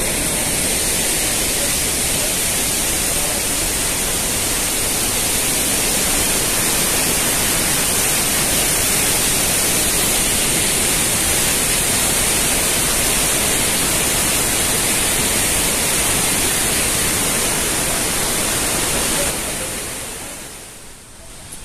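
Water of a large waterfall rushing, a loud steady noise that fades out near the end.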